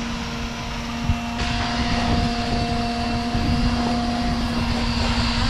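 Steady machine hum with a constant pitch, joined about a second and a half in by a rushing hiss.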